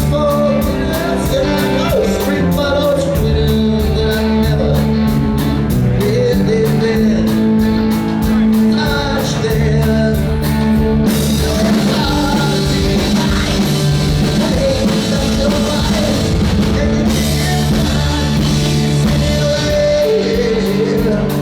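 A rock band playing live, with a lead vocal sung over electric guitars, bass and a drum kit.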